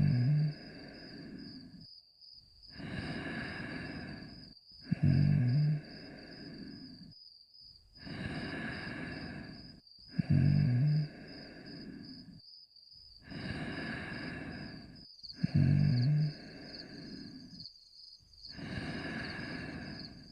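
Cartoon dog snoring in a steady cycle about every five seconds: a drawn-out breathy stretch, then a short, loud, low snort, then a brief pause. Four snores in all.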